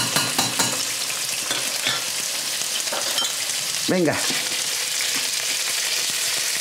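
Pork ribs browning in a little oil in a frying pan, with a steady sizzle. A few sharp clicks of a spoon stirring a pot come in the first second.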